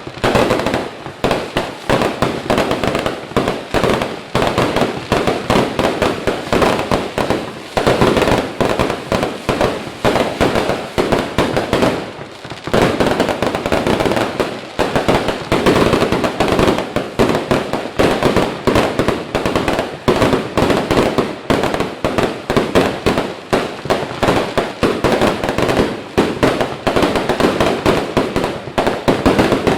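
Fireworks going off in a dense, continuous barrage of bangs and crackles, with a brief lull about twelve seconds in.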